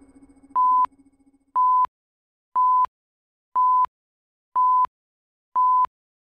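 Film-leader countdown beeps: six short beeps of the same pitch, one each second, each ending in a sharp click, the last about a second before the end.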